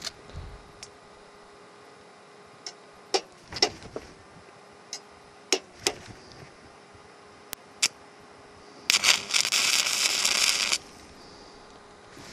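SUZUKID IMAX80 inverter stick welder at 60 A with a 2 mm stainless rod: a few sharp ticks and taps as the electrode meets the stainless work to strike the arc. Then, about nine seconds in, the arc burns for about two seconds with a loud crackling hiss and cuts off suddenly.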